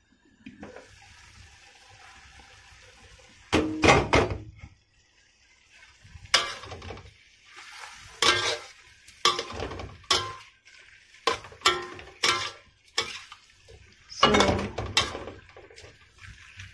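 Beef and onion stir-fry sizzling faintly in a covered wok, then a loud clatter about four seconds in, followed by a utensil scraping and clanking against the wok in irregular strokes as the beef is stirred.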